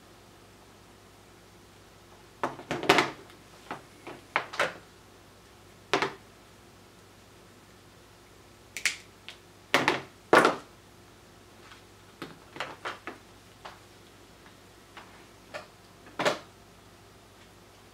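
Scattered light clicks and knocks of small hand tools being handled and set down on a cutting mat during soldering, about a dozen in all, with a faint steady hum beneath.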